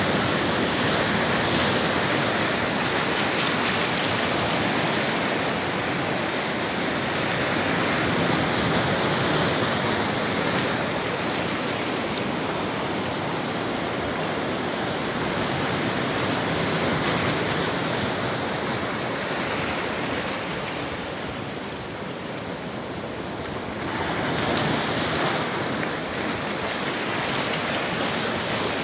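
Sea surf breaking and washing in steadily, easing for a moment about three quarters of the way through.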